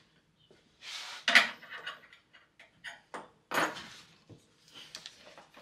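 Metal strip being handled and set down on a wooden workbench: a few clatters and knocks, the sharpest about a second in and another a little past halfway, with small clicks between.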